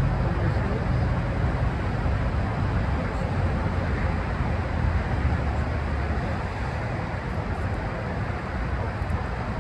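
Road traffic noise: a steady rumble of passing cars that eases off a little in the second half.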